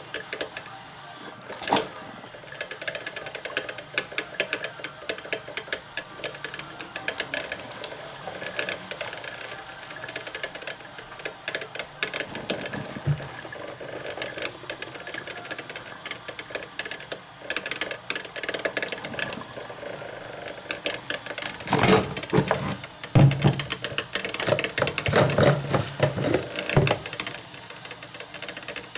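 Many quick, irregular clicks and light rattles of objects being handled, growing denser and louder with a run of knocks in the last third.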